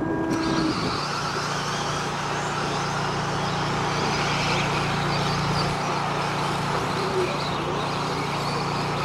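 A short electronic start tone sounds about a third of a second in. A pack of radio-control off-road race trucks then pulls away and keeps running on the dirt track, a steady mix of motor whine and tyre noise.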